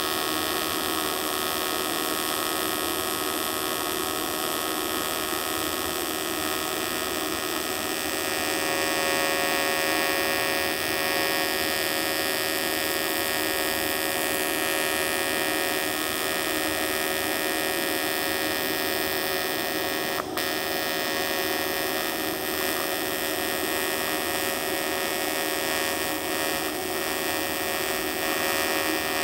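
AC TIG welding arc from an Everlast 200DV on cast aluminum, a steady electric buzz held without a break as the torch is run over the toes of the finished weld beads. One brief click about twenty seconds in.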